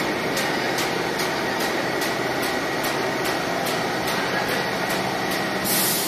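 Roll-to-sheet paper cutting machine running with several paper rolls feeding at once: a steady dense machine noise with a light regular ticking about twice a second. A brief louder hiss comes near the end.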